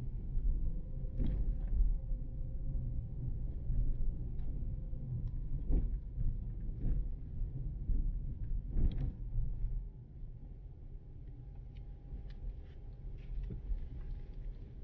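Low rumble of a car driving on city streets, with a few short knocks. It eases off a little about two-thirds of the way through.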